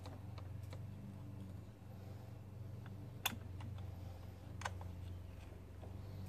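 A few light clicks and ticks from hands working a scooter's rear brake caliper bleeder fitting and its clear plastic bleeder tubing, with one sharper click about three seconds in, over a steady low hum.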